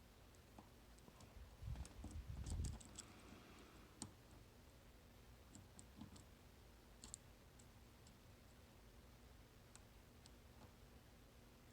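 Faint, scattered small clicks of a pick working the pins of a nine-pin dimple lock held in a false set, with a brief louder rustle and a quick run of clicks about two seconds in.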